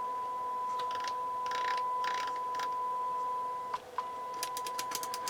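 Marantz 2216 receiver playing a steady 1 kHz test tone, with bursts of scratchy crackle as its controls are worked. The tone cuts out briefly near four seconds in, followed by a quick run of sharp clicks.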